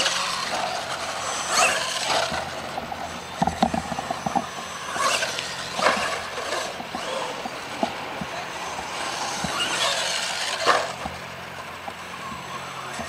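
A 2.2-scale radio-controlled monster truck running on a dirt track, its motor whirring, with several sharp knocks and clatters from jumps, landings and tumbles. The loudest come about a second and a half in, around six seconds and near eleven seconds.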